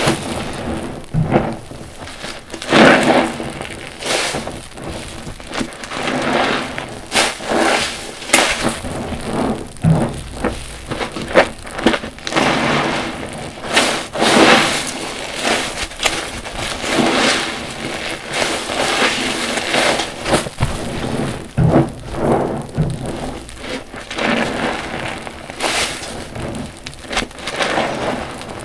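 New car wash sponges squeezed again and again in soapy water: wet squelches, crackling suds and water running out, in irregular swells every second or two.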